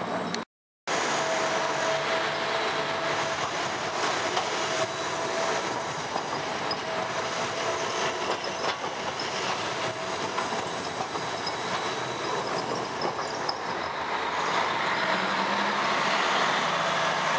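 Green Siemens Combino low-floor trams running on street track: a steady rolling rumble of wheels on rail with a thin steady tone, growing louder near the end as a tram approaches.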